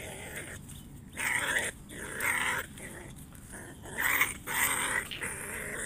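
Ferret-badger held down on a stick giving harsh, hissing calls in about four short bursts, the sounds of a restrained wild animal.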